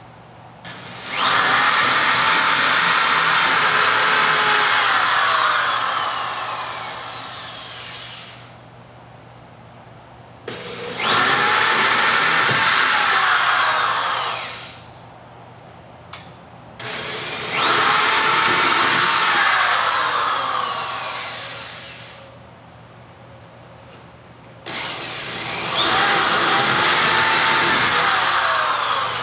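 Corded electric drill boring four holes into a wood wall, one after another: four runs of a few seconds each, the motor's whine sagging in pitch and fading as each hole is drilled, with short pauses between.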